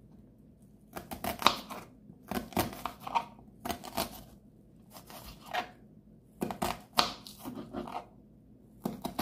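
Kitchen knife slicing through a white onion and knocking on the cutting board: short crunchy cuts in small groups, with pauses between.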